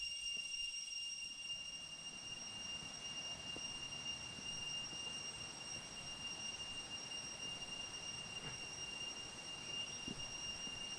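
A rainforest insect's steady, siren-like whistling: one unbroken high tone with a fainter overtone above it, over a soft hiss of background noise.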